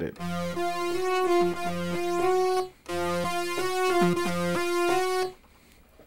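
A layered synthesizer patch in Reason's Combinator, built from Thor synths, playing a short keyboard phrase over a low bass note, twice, with a brief break between. It stops a little after five seconds in.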